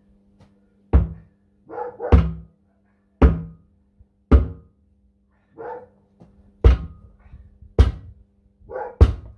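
Heavy hammer blows on the steel parts of a tractor wheel during a tyre change: seven hard strikes, each with a brief metallic ring, about a second apart with a short pause in the middle.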